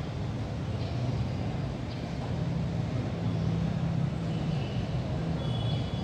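A steady low rumble, with a few faint, brief high chirps.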